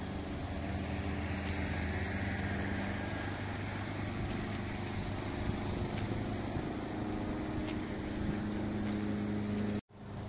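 A motor engine running steadily with a low hum, which cuts out abruptly near the end.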